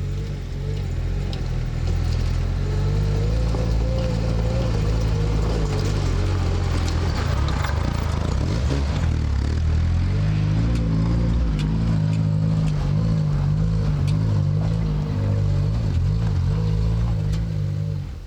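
Lada Niva's engine pulling under load on a rough track, its pitch wavering up and down, with scattered knocks and rattles. The sound drops away right at the end.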